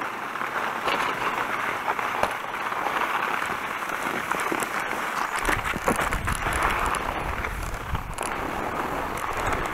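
Skis hissing and crackling as they slide over wet, heavy snow. About five seconds in, a low wind rumble on the microphone joins as the skier moves off across the slope.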